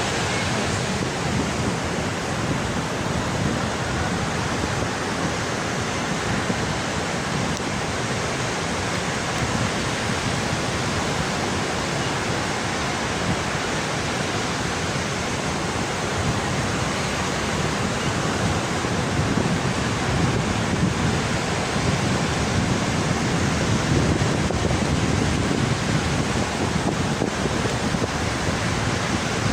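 Sea waves washing onto a beach, a steady rush of surf that grows a little louder in the second half.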